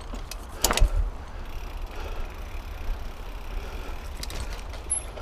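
Mountain bike rolling over a rough, rooty and rocky trail: a steady hiss and low rumble of riding, with a sharp knock just under a second in and a few lighter clicks and rattles near the end.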